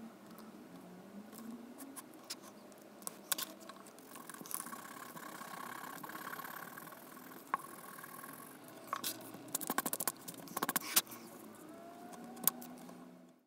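Rubbing and brushing on paper, with scattered taps and a quick run of clicks near the end, from hands erasing pencil lines on a sketchbook page and handling it.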